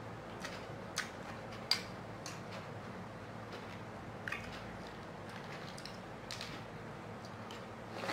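Metal spoons clinking lightly against plates and bowls as people eat, a few scattered clicks, the sharpest about a second in and shortly after, over quiet room hum.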